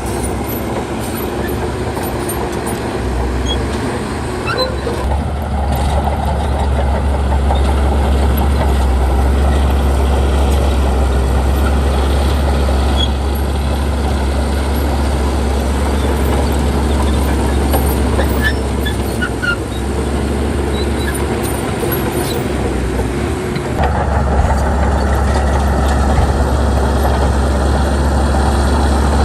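Heavy diesel machinery running steadily, with a strong low engine sound that shifts about 24 seconds in.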